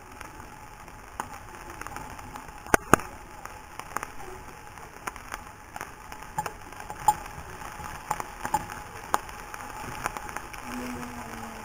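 Celery, bacon and garlic frying in a pan: a steady sizzle with scattered pops and crackles, and two sharp clicks close together about three seconds in.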